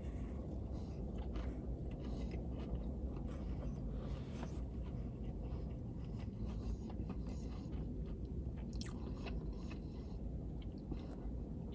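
A person chewing a mouthful of fried chicken sandwich, with scattered small crunches of the breading, over a steady low hum.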